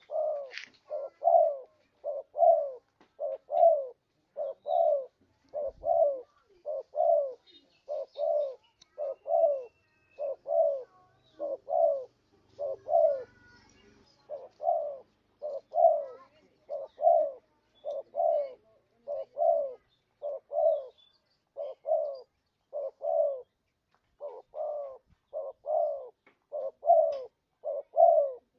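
Spotted dove (tekukur) cooing in a long, even series of short notes falling in pitch, about two a second. This is a lure call of the kind used to draw wild doves in.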